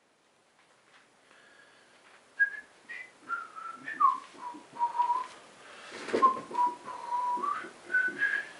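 A man whistling a tune, a single clear note stepping up and down, held on some notes and gliding between others. A few knocks and a thump about six seconds in come with it.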